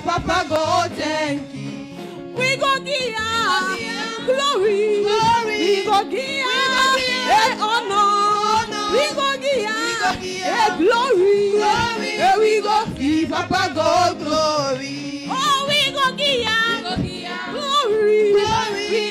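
Women singing a praise and worship song into microphones, the lead voice sliding and wavering through the melody, over steady held notes from an accompaniment.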